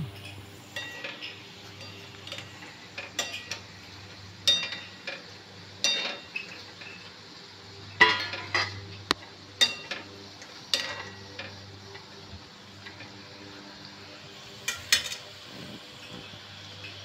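Metal ladle stirring onion bhaji in a steel kadhai of hot oil, with irregular clinks and scrapes against the pan about every second, over a faint sizzle of deep-frying.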